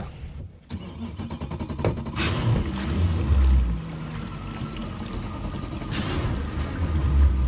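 Twin Mercury V8 300 four-stroke outboard engines running at low speed, pushing the boat along; their low rumble swells and eases a few times.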